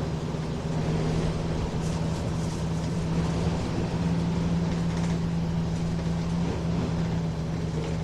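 Nissan Diesel Space Runner RM (KC-RM211GSN) mid-size bus heard from inside the cabin while driving, its diesel engine running with a steady low drone.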